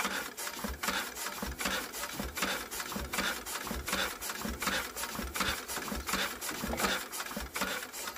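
A 90-year-old Lister B-series petrol stationary engine being turned over by its starting handle without firing: a fast, even mechanical clatter of about four beats a second as the flywheels spin.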